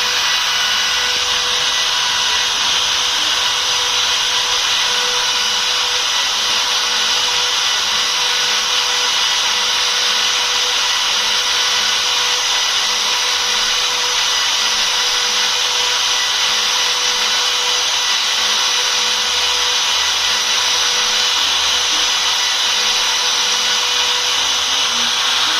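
CNC router spindle running steadily while engraving: a constant high-pitched whine over the hiss of the cutter in the material, unchanging throughout.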